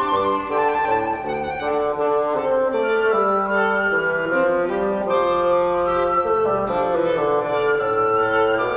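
Chamber trio of flute, violin and bassoon playing a Christmas carol arrangement together, the bassoon holding a low line under held notes from the flute and violin.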